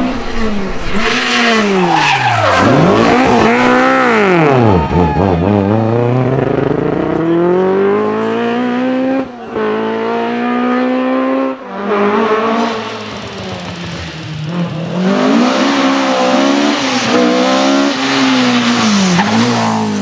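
Historic rally car engines revved hard through a tarmac stage, the revs sweeping up and dropping sharply with gear changes and throttle lifts. The sound cuts between several cars in turn.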